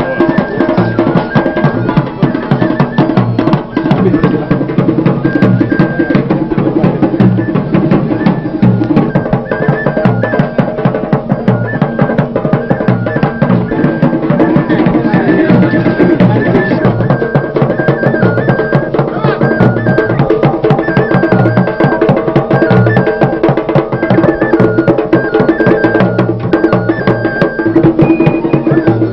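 Traditional music played on drums and percussion in a steady, busy rhythm, with a melody stepping between notes above the beat.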